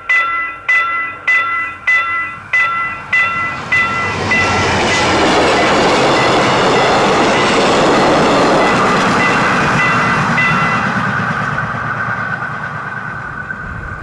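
Railway level-crossing bell striking about every two-thirds of a second, soon drowned by a passing diesel-hauled passenger train whose rumble and wheel noise swell about four seconds in and ease off near the end. A steady high tone is left ringing as the train noise fades.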